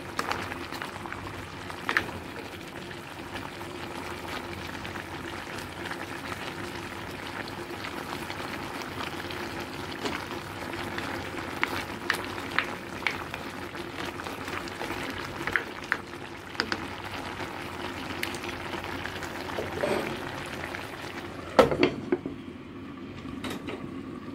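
Chicken and mushroom stew simmering and bubbling steadily in a ceramic clay pot, with scattered sharp clicks of a ladle against the pot. Near the end come a few louder knocks as the ceramic lid is set on the pot.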